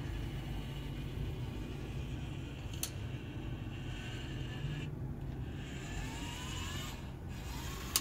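Small geared electric motors of a home-built pan-and-tilt camera head whining as the head is driven from a joystick. The whine comes and goes, rises in pitch about six seconds in, and sits over a steady low hum. A sharp click comes near the end.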